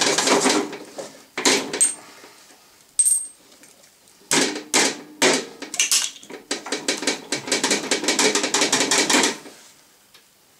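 Rapid metallic clicking in several runs, the longest about three seconds near the end, as the rear drive wheel of a Husqvarna R53S Pro mower is worked loose with a tool and pulled off its axle. The wheel's internal drive teeth are stripped.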